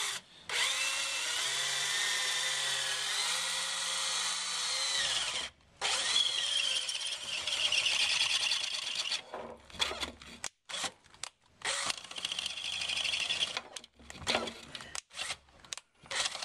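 Power drill with a 19 mm spade bit cutting a hole through an aluminium roof rail, the bit squealing against the metal. It runs steadily, stops briefly about five seconds in, then runs in short stop-start bursts through the second half as the bit breaks through.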